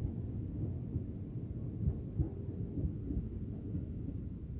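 Electric commuter train passing close by at speed: a steady low rumble with irregular thumps of wheels running over the rails.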